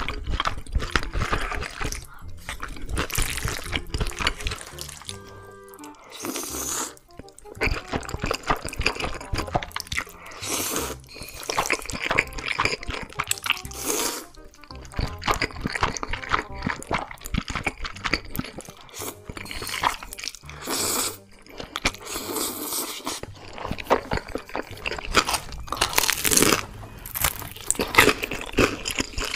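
Close-miked eating: slurping black bean noodles and chewing, with many short crunchy bites, over background music.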